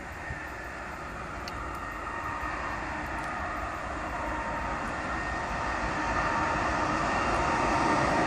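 EP20 electric locomotive hauling a double-decker passenger train on approach; the train's running noise grows steadily louder as it nears.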